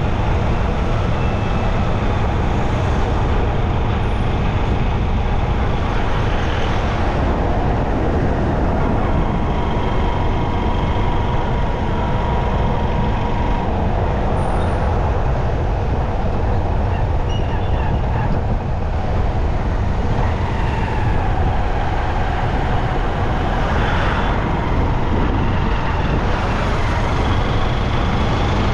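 Steady road traffic noise from riding along a city street: a constant low rumble of engines and tyres, with a faint held tone coming and going twice.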